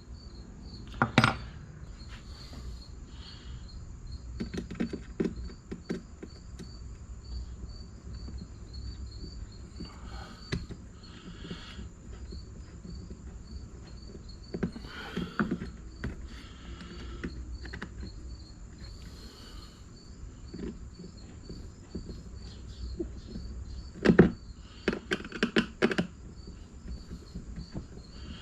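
Scattered clicks and knocks of small metal parts and tools being handled while washers and screws are fitted to a car door handle, the loudest a sharp knock about 24 seconds in. Behind them, crickets chirp in a steady, even rhythm throughout.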